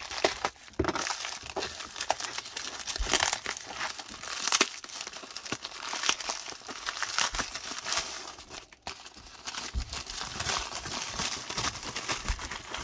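Packaging being crinkled and torn open by hand: irregular crackling and rustling with sharp little snaps throughout.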